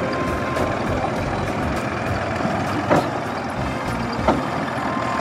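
Diesel farm tractor engine running steadily as the tractor drives off towing a straw round baler, with a couple of short clanks about three and four seconds in.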